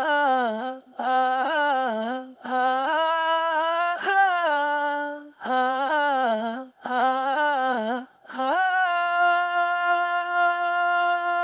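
Unaccompanied male voice humming a melody in short, gliding phrases, ending on one long held note near the end.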